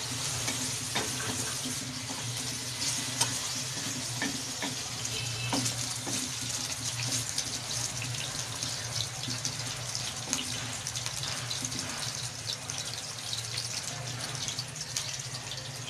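Bitter gourd pieces sizzling in hot oil in an aluminium karahi, a steady hiss with small crackles, stirred now and then with a wooden spatula. A low steady hum runs underneath.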